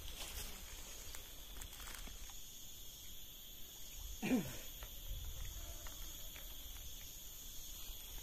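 Steady high insect drone, crickets or cicadas, with one short sound sliding down in pitch about four seconds in.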